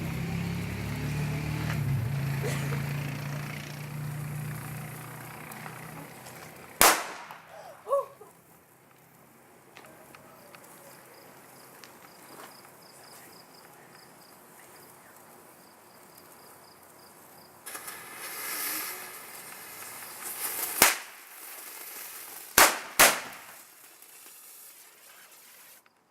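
Cheap consumer fireworks going off: a hissing that fades over the first several seconds, then two sharp pops about 7 and 8 seconds in, a short burst of hissing around 18 seconds, and three more sharp bangs near 21, 22.5 and 23 seconds.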